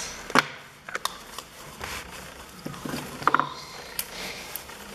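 Homemade slime being squeezed and stretched in the hands, giving scattered sticky clicks and pops.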